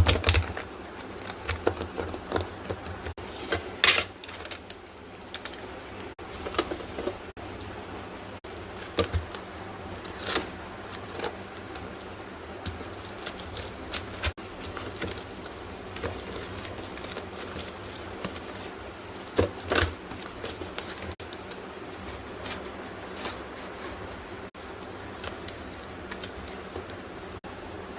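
Hands unpacking a hand sanitizer: scattered taps, clicks and rustles of packaging and a small plastic bottle, irregular and unhurried.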